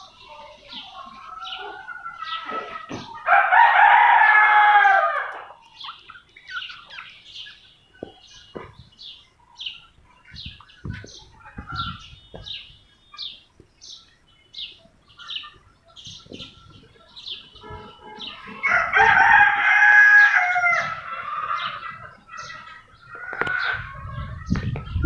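A rooster crowing twice, a few seconds in and again about two-thirds of the way through, each crow about two seconds long. Small birds chirp repeatedly throughout.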